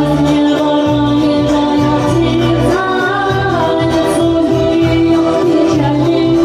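Singing in long held notes over a 1990s Russian pop karaoke backing track with a steady bass line.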